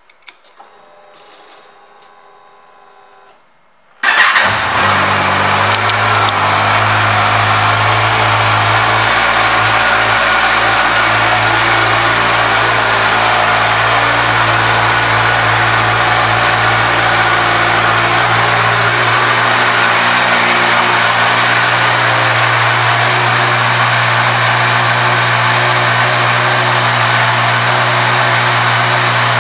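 2014 Kawasaki Ninja 1000's inline-four engine started about four seconds in, catching at once and then idling steadily. Before the start there is only a faint whir.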